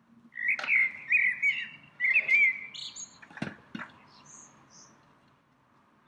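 A songbird singing: a run of warbling, whistled phrases over the first two and a half seconds, then higher thin notes and two sharp clicks, trailing off after about four seconds.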